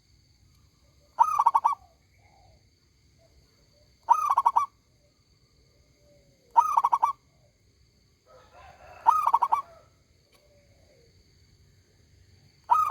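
A zebra dove (perkutut) cooing, loud and ringing: a short, rapid stuttering phrase of pulsed notes, repeated five times about every two and a half seconds.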